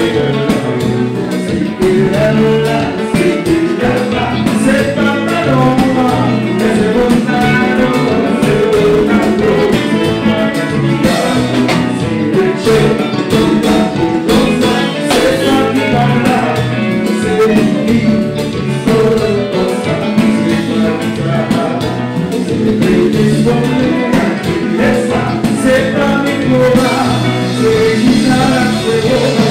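Live Haitian konpa band playing, with male singers singing lead into microphones over electric guitar and the band.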